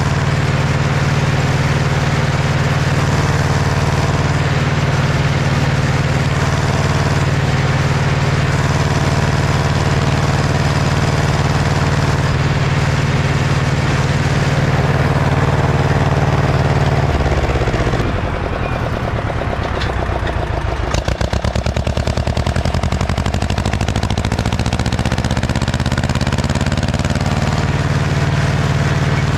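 Ursus C-335 tractor's diesel engine working steadily under load. A little over halfway through, the revs drop sharply and the engine runs slowly enough for single firing beats to be heard, then the revs climb back up.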